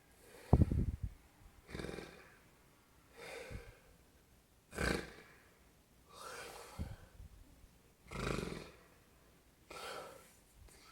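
An elderly man snoring in his sleep. A loud, rattling snore comes about half a second in, then a run of breathy snoring breaths in and out, one every second or so.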